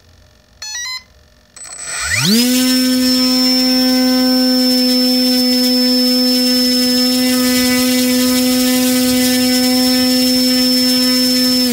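A HeadsUpRC Leopard 960kv brushless motor on an RC plane gives a short run of rising beeps, then spins a 12x6 propeller up quickly to full throttle. It holds a steady, high whine for about nine seconds, drawing about 25 amps and 265 watts through the stock ESC, and begins to wind down at the very end.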